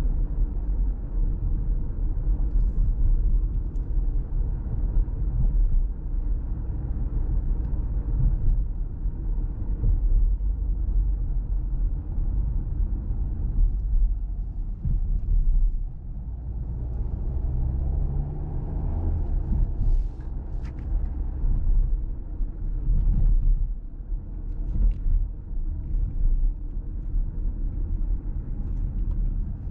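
Low, steady rumble of a 2024 Volkswagen Tiguan's 1.5 eTSI four-cylinder turbo mild-hybrid engine and its tyres on the road, heard from inside the cabin at slow town speed. A brief humming note rises about two-thirds of the way in.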